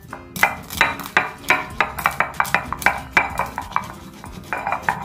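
Stone pestle crushing whole peppercorns in a volcanic-stone mortar (Indonesian cobek and ulekan): a quick run of sharp knocks and grinds, about three a second, thinning out near the end.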